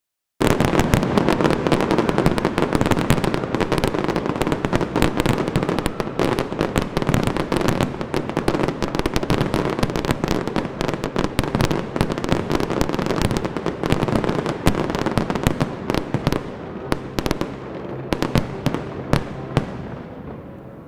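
Fireworks display: a dense barrage of bangs and crackling, thinning out over the last few seconds to scattered single bangs.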